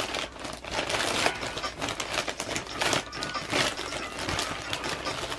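Plastic poly mailer bag being cut and pulled open by hand, a run of irregular crinkles and rustles of the thin plastic.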